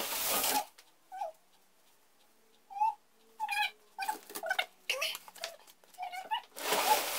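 Rustling of snow-flocked artificial Christmas tree branches being handled and pulled out of a cardboard box, in two loud bursts, at the start and again near the end. Between them come short high whines, one of them rising.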